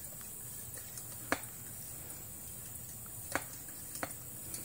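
Steady high insect drone over a low hum, with three faint sharp clicks: one about a second in and two close together near the end.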